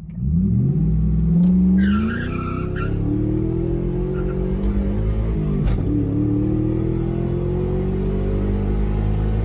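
A car engine revving as the car accelerates, its pitch climbing, then dropping sharply about six seconds in as it shifts up, and climbing again. A brief squeal sounds about two seconds in.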